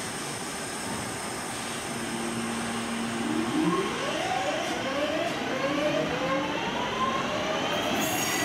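Class 323 electric multiple unit pulling into the platform, its traction motors whining in a run of short rising tones from about three and a half seconds in, over a steady hiss.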